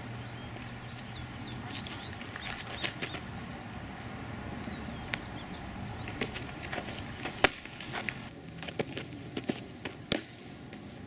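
A 57 mph softball curveball popping into the catcher's mitt with one sharp smack about seven seconds in, with a few lighter taps around it.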